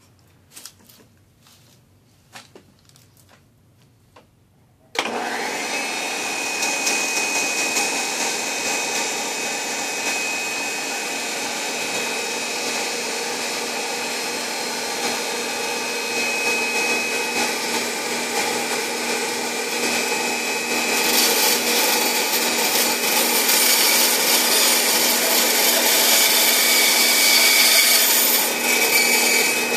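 A few light handling clicks, then about five seconds in a Craftsman 11-inch 1/3-horsepower bandsaw switches on and runs steadily with a high whine. From about twenty seconds in a brighter, louder hiss joins as the 1/8-inch blade cuts into the coral's stony skeleton.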